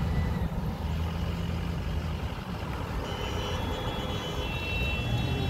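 Cars driving past close by at low road speed, a steady low rumble of engines and tyres.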